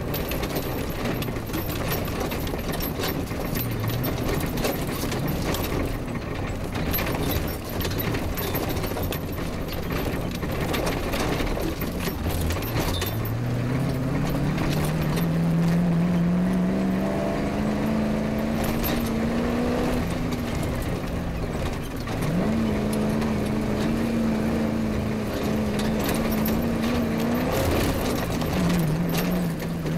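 Off-road rally car driven hard over rough grass, its engine running under the jolting knocks and rattles of the body and suspension. About twelve seconds in, the engine note climbs steadily as the car accelerates, then eases off. It picks up again sharply and holds high, and drops back near the end.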